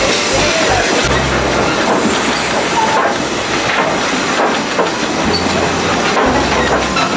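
Narrow-gauge steam train running, heard from an open carriage: a loud, steady rush of wheels on the rails and hissing steam from a 1947 Perry Engineering steam locomotive. Low rumbles come and go every second or two.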